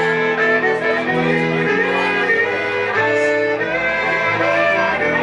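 Live band playing: a fiddle bowing held, sliding notes over electric guitar and upright double bass, with a stepping bass line underneath.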